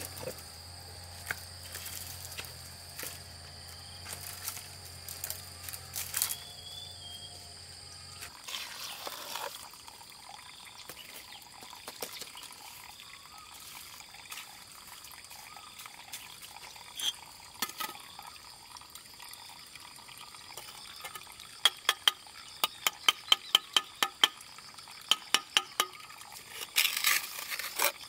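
Bricklayer's trowel working wet cement mortar on a hollow red brick wall: wet scraping and scattered knocks, then a quick run of sharp taps, about four a second, about two-thirds of the way through as bricks are tapped down into their mortar bed. A steady high insect drone runs underneath.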